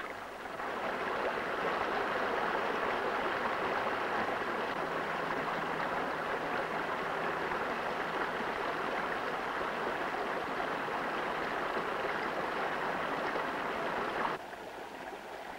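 Water rushing and cascading over boulders in a rocky stream, a steady even rush that drops away suddenly about a second before the end.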